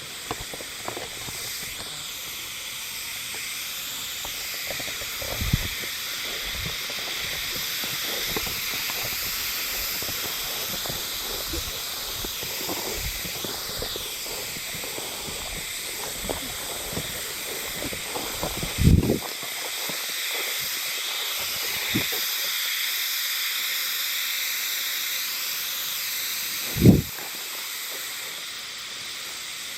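Chorus of hime-harusemi cicadas (Euterpnosia chibensis) singing, a continuous high buzzing hiss that slowly swells and then eases. A few brief low thumps break in, the loudest two-thirds of the way through and near the end.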